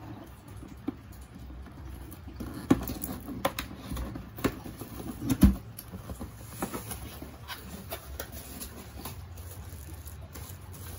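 A cardboard box being opened by hand: packing tape cut with small scissors and peeled off, cardboard flaps pulled open and plastic-wrapped parts handled, giving irregular scratches, taps and knocks, the loudest a knock a little past halfway.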